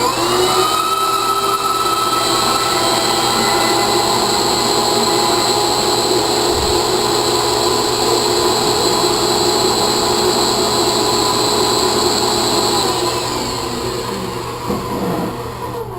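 Chicago Electric (Harbor Freight 47840) portable variable-speed band saw starting up and cutting through metal angle on its slowest speed: a loud, steady mechanical whine with several high tones. About thirteen seconds in, the pitch drops and the sound eases as the blade breaks through, and the saw stops near the end.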